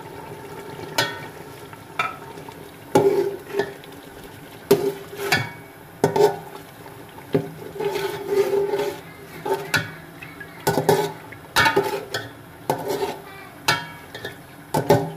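Metal spoon stirring chicken and spice masala in an aluminium pot, knocking and scraping against the pot again and again over the sizzle of frying.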